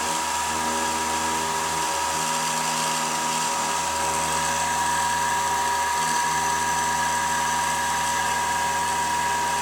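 Spindle of a Terzago Easy 625 CNC stone router running with a V-bit carving marble: a steady, unbroken whine with one strong held tone over a grinding hiss.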